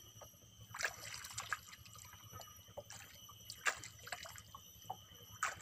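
Faint water drips and small splashes, coming irregularly, with a few sharper ones about a second in, near four seconds and near the end.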